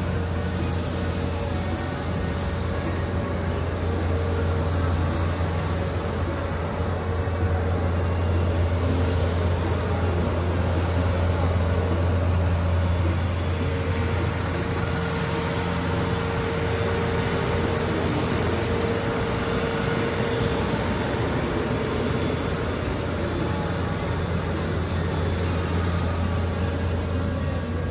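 Steady low rumble of city street noise, with a constant faint hum over it.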